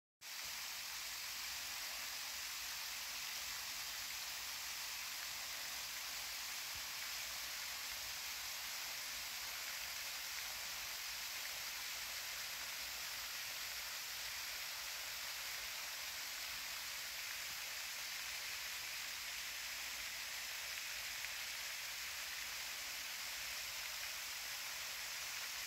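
A faint, steady hiss with little bass and no change in level.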